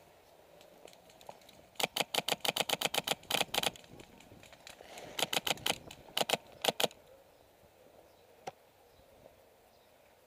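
Airsoft gunfire: a burst of rapid, evenly spaced snapping shots of about ten a second lasting nearly two seconds, then two shorter bursts and a single shot near the end.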